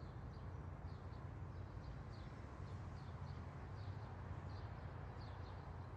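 Faint outdoor ambience: a steady low hum with soft, high bird chirps recurring about every half second.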